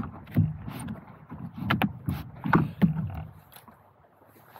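Irregular knocks and thumps of hands and gear being handled on a paddle board's deck, dying away over the last second.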